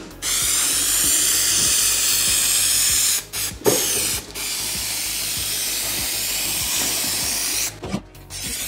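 3M Hi-Strength 90 spray adhesive hissing out of its aerosol can in two long sprays onto foam, with a short break and a light knock about three and a half seconds in.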